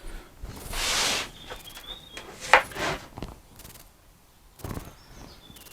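Workshop handling noises from wooden drawer-door parts: a short scraping rustle about a second in, then two sharp knocks a moment apart midway, and a faint knock near the end.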